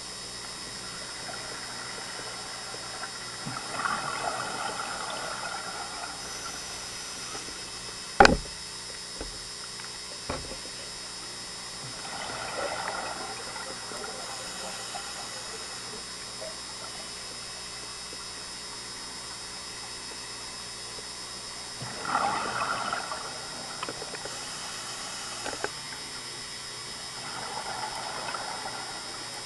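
Scuba regulator exhaust bubbling underwater in four separate bursts, about one exhalation every eight or nine seconds, over a steady hiss. A single sharp click about eight seconds in is the loudest sound, with two fainter clicks later.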